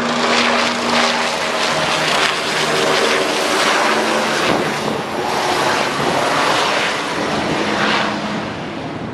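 Bell 429 twin-turbine helicopter passing close overhead and climbing away: loud rotor chop over a steady engine hum, starting to fade near the end.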